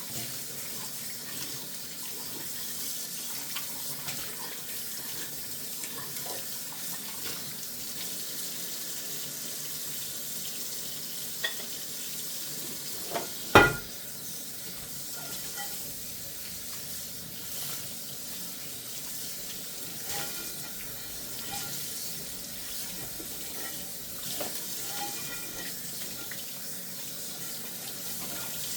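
Tap water running steadily into a kitchen sink during hand dishwashing, with faint clinks of dishes. About halfway through, a dish knocks sharply once against the sink or another dish, the loudest sound here.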